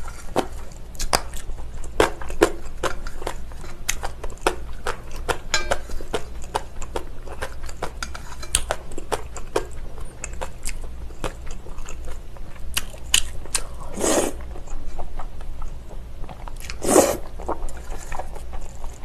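Mouth sounds of eating spicy cold noodles in broth: steady chewing and lip smacks, with two louder slurps of noodles, one about 14 seconds in and another about three seconds later.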